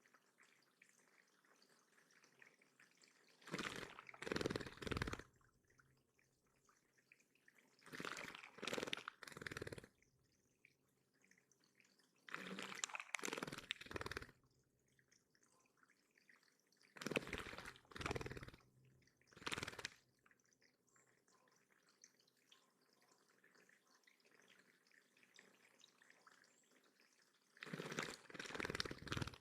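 Water splashing in six short bursts of one to two seconds each, with quiet gaps between: a bird bathing in a shallow backyard bird pond.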